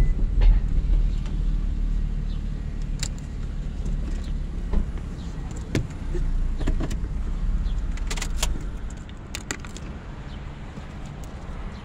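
Car engine running low, heard from inside the cabin, with scattered clicks and a jangle of keys. The low rumble drops away about eight and a half seconds in.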